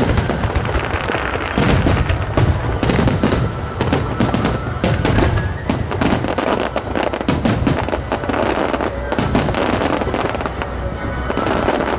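Aerial fireworks bursting in a rapid, dense barrage of bangs and crackles, a star mine fired to music, with the accompanying music playing underneath.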